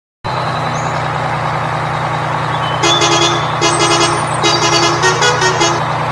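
Truck engine sound effect running steadily, with a horn sounding in a run of short honks from about three seconds in until near the end, its pitch shifting slightly between honks.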